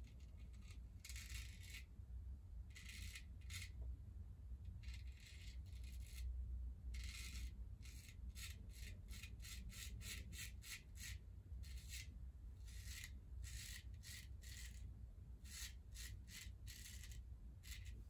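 Freshly honed straight razor cutting lathered whiskers: a series of short, scratchy strokes, irregularly spaced and coming quicker around the middle.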